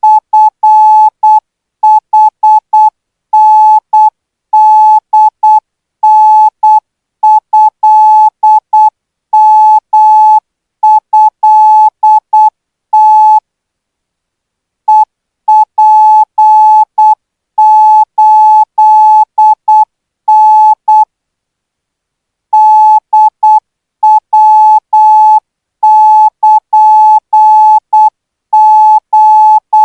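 Morse code practice signal in Thai Morse: a single-pitched beep keyed in dots and dashes at 12 words per minute. Two longer pauses of about one and a half seconds break it, one near the middle and one about two-thirds through.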